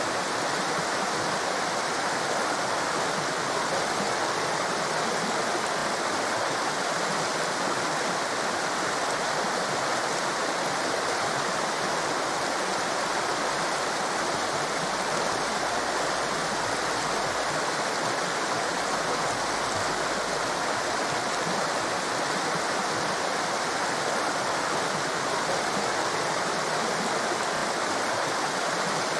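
Fast-flowing torrent of water rushing steadily, an even unbroken noise with no change in level.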